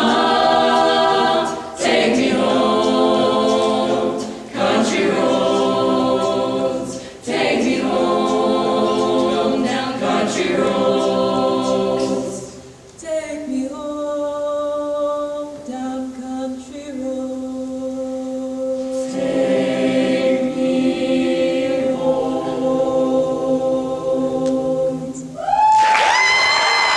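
Mixed youth a cappella choir singing in close harmony. Chordal phrases are broken by short breaths, then long held chords follow, and near the end a high voice slides up over the closing chord.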